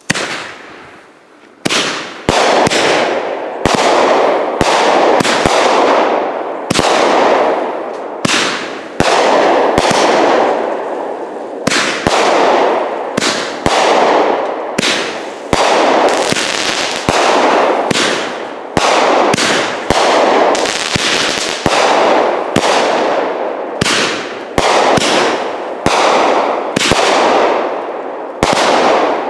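High Falutin consumer firework cake firing: a steady run of loud, sharp bangs, about one or two a second, each dying away before the next.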